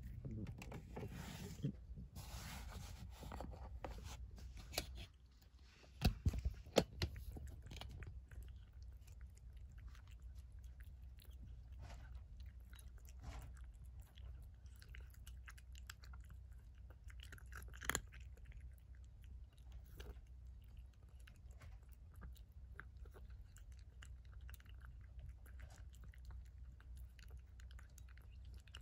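An orange tabby cat chewing wet cat food from a raised ceramic bowl, with many small wet chewing and lapping clicks. A few sharp, louder knocks come about six to seven seconds in.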